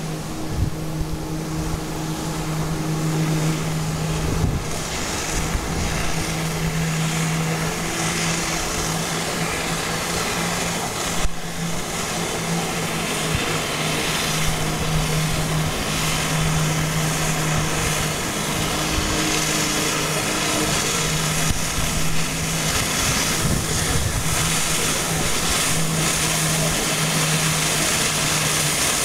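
Water jetpack in use: the personal watercraft's engine runs steadily, pumping water up the hose, with the hiss of the water jets and spray and wind buffeting the microphone.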